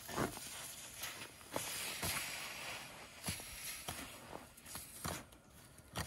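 Freshly welded, still-hot metal plate hissing as it is quenched in snow, the hiss fading after about three seconds, with a few crunches as snow is pushed over it.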